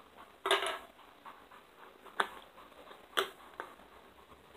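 Slime handled in the hands alongside its plastic tub and lid: a few short, sharp pops and clicks. The first, about half a second in, is a little longer; the others come sharp and single.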